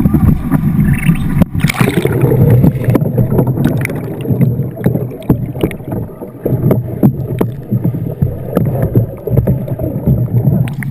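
Fast, flood-swollen river water rushing and splashing around a kayak, with frequent sharp slaps and knocks of water and paddle against the boat, and wind on the microphone.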